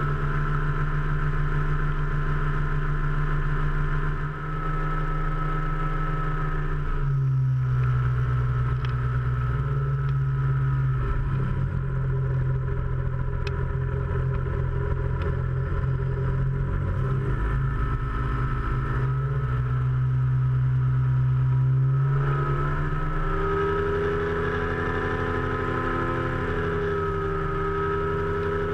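Powered parachute's engine and propeller droning in flight. The pitch drops as the throttle is eased back about seven seconds in, then climbs again about twenty seconds in as the cart descends low over the field.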